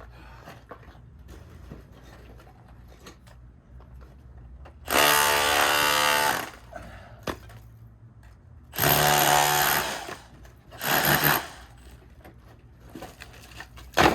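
A handheld power tool is run in three short bursts against old plaster on a rock wall: one of about a second and a half, then two shorter ones. Small cracks and ticks of plaster come between the bursts.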